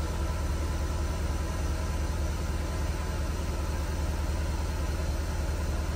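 Porsche Cayenne S V8 engine idling steadily, a low, even rumble.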